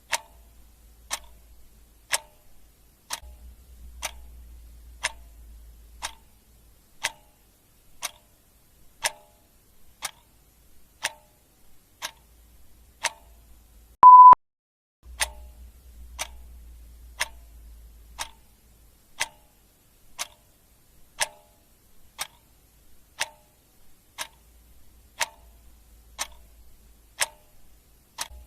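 Clock ticking steadily, about one tick a second, with one short, loud, high beep about halfway through.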